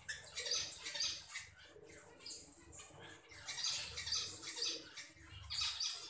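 Budgerigars chirping and chattering in quick, repeated bursts.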